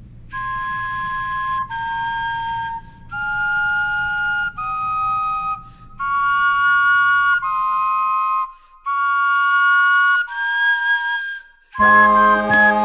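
Two carved carrot recorders play a slow melody in two-part harmony, a run of breathy whistle-like notes held about a second each with short breaks between them. Near the end a louder, lower group of vegetable horns comes in.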